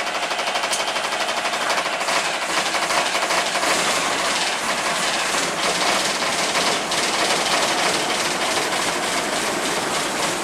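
Dennis Dart bus's diesel engine running close up, a loud fast even clatter, just after a repair to the fuel pump's wiring meant to cure a loss of fuel prime.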